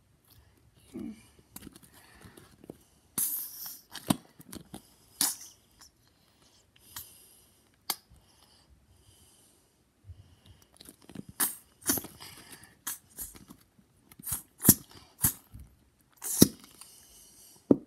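A squeeze bottle of glue being squeezed out and sticky slime being handled: irregular wet, sputtering squirts and sharp clicks, coming thicker in the second half.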